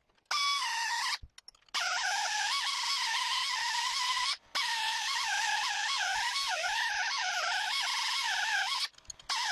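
Handheld pneumatic air sander whining at high speed as it sands and polishes a steel bar, its pitch wavering as it is pressed against the metal. It is loud, with three brief breaks where it cuts out.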